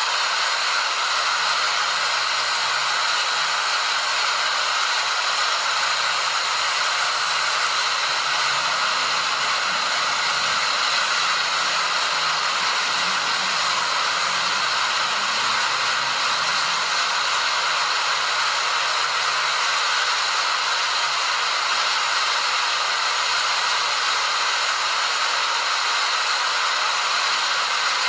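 Waterfall: a steady, unbroken rush of falling water, a dense hiss with no distinct splashes or changes.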